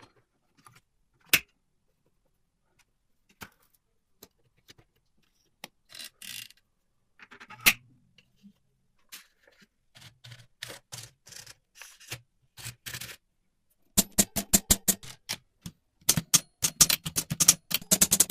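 Keys of a restored 1976 mechanical typewriter being struck: scattered single clacks at first, then fast runs of typing near the end.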